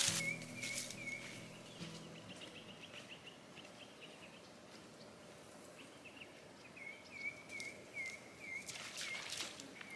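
Quiet outdoor bush ambience with a bird calling runs of short, repeated notes, one run at the start and another from about six seconds in. A few brief, soft noises come near the end.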